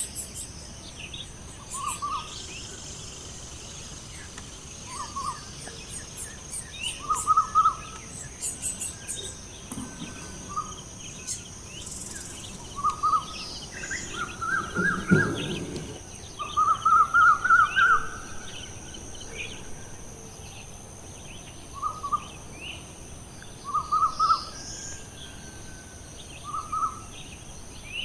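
Birds calling in short chirping clusters every couple of seconds, over a steady high-pitched background drone, with a louder, lower sound about halfway through.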